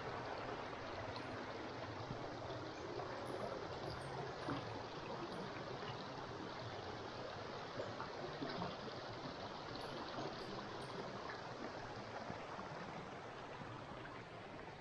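Small forest stream babbling steadily, with a few faint light ticks mixed in.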